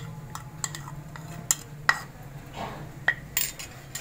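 Kitchenware clinking and scraping as paste is scraped out of a small bowl into a plastic bowl of yogurt: a string of sharp, irregular clicks and taps, with a low steady hum underneath.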